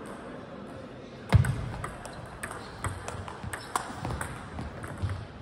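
Table tennis rally: a loud thump about a second in, then the ball clicking off the rackets and the table roughly twice a second.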